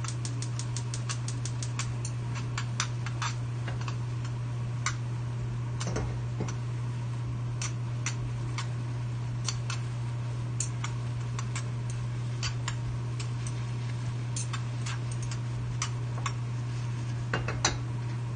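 Chopsticks clicking and tapping against a small saucepan as instant noodles are stirred through their sauce. A fast run of ticks comes first, then scattered clicks, over a steady low hum.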